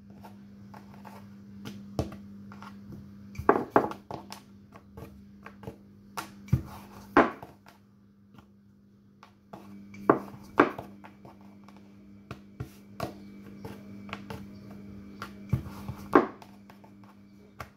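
A wooden rolling pin rolls out dough on a floured tabletop, with irregular knocks as the pin and dough pieces are set down and handled. A steady low hum runs underneath.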